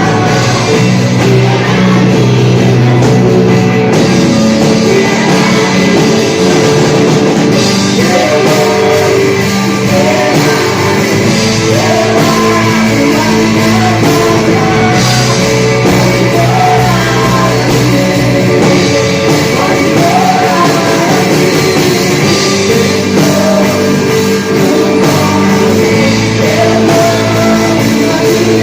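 Loud rock-style worship music played by a live band with drums, with a melody line running over a steady beat.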